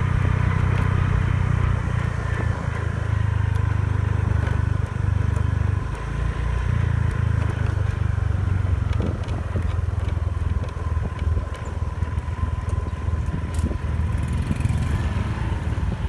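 Motor scooter running at low riding speed, a steady heavy low rumble, with a few faint clicks and rattles.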